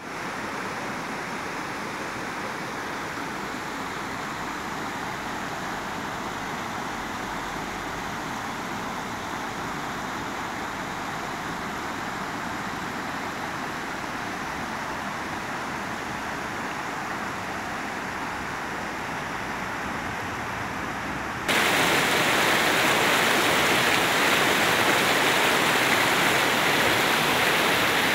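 Shallow river rapids rushing over rocks and a low weir: a steady rush of running water that jumps suddenly louder and brighter about three-quarters of the way through.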